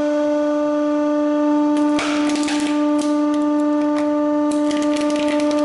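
Hydraulic press running with a steady pitched hum from its pump as the ram crushes a coconut. Sharp cracking and crunching of the shell and husk starts about two seconds in, and a second burst of crackling comes near the end.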